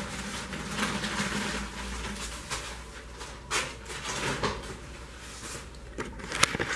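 Scattered knocks and rustles of someone moving about, ending in close camera-handling noise: a hand gripping and moving the camera, with a few sharp clicks about six seconds in. A low steady hum fades out in the first two seconds.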